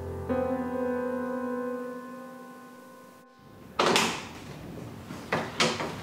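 Soft background music, a held chord that fades away by about three seconds in. After a short gap, a door is opened with a sharp clack about four seconds in, followed by a few more knocks and clatters.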